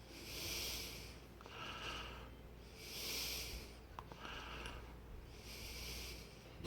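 Slow, close breathing, soft hissy breaths in and out about every second, over the faint steady low hum of an electric box fan running.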